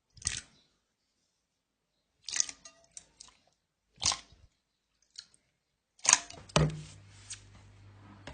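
Slime being squeezed and pressed by hand, giving short crackling bursts separated by silence, with clusters of several about two seconds in and again near the end. A low steady hum comes in near the end.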